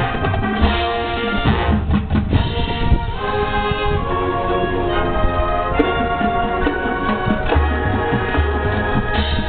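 Marching band playing: brass and woodwinds holding sustained chords that change every second or so, with bass drums and percussion underneath.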